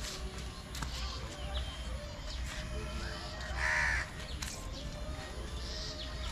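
A crow cawing once, loud and harsh, about three and a half seconds in, with fainter, higher calls around one second in and near the end.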